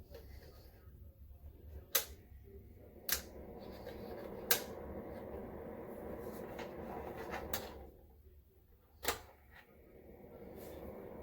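Portable electric fan heater running with a steady fan hum, and a handful of sharp clicks from its controls being turned. The fan dies down about eight seconds in, then builds back up.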